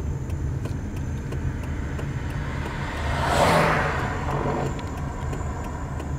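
Motor vehicle engine running steadily at low speed, with a car passing by about three and a half seconds in, its rushing tyre noise swelling and fading.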